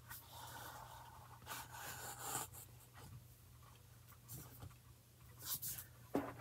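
Sheets of paper sliding and rustling against each other on a cutting mat as cardstock is shifted over a printed page: a longer soft rustle in the first couple of seconds, then a few shorter ones near the end.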